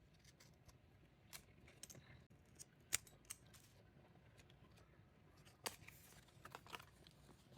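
Faint handling sounds: scattered small clicks and taps as photo cards and their packaging are handled. The sharpest click comes about three seconds in, another just before six seconds, with a few weaker ones between.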